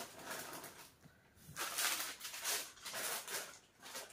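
Cloth rustling as fabric is handled, in several short bursts starting about one and a half seconds in.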